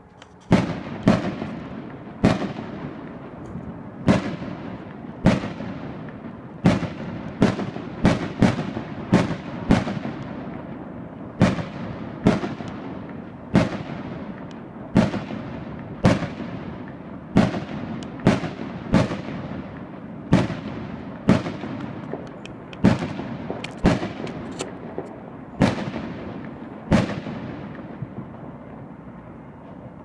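Aerial fireworks going off: sharp, echoing bangs about once a second, some in quick pairs and triples, each dying away in a long tail. The bangs stop shortly before the end.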